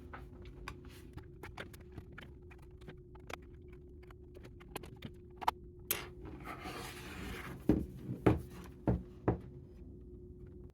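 Small plastic clicks and scrapes as the laptop's bottom cover is pried off its clips, with a stretch of scraping about six seconds in, then several louder knocks as the panel comes free and is handled. A faint steady hum runs underneath.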